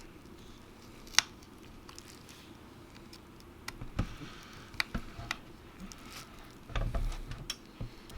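Small clicks and taps of repair tools and phone parts being handled: a sharp click about a second in, a few lighter ticks later, and a low handling bump near the end.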